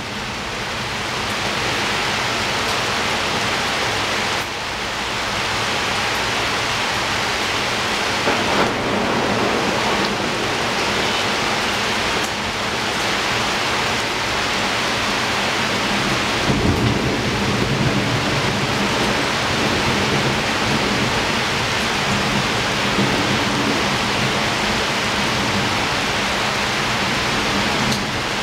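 Heavy rain falling steadily on and around a window, an even hiss with low rumbles of thunder swelling about 8 and 16 seconds in.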